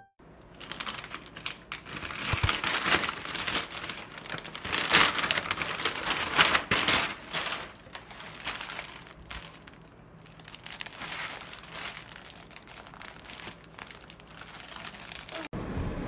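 Irregular crinkling and rustling of something being handled, in uneven bursts that are loudest about five and six and a half seconds in; it breaks off suddenly near the end.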